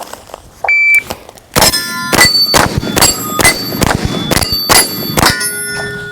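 A shot timer gives a short high beep. About half a second later comes a rapid string of about ten gunshots, each followed by the ringing clang of steel targets being hit.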